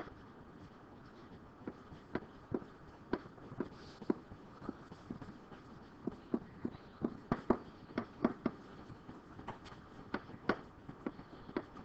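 Pen or stylus tapping and clicking on a writing surface as words are handwritten: light, irregular clicks, about two or three a second.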